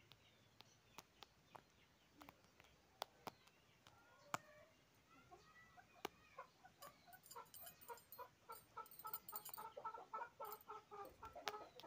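Faint sharp knocks of a hoe blade striking dry, clumpy soil, a handful of single strikes in the first few seconds. From about halfway on, a chicken clucks in a fast run of short calls.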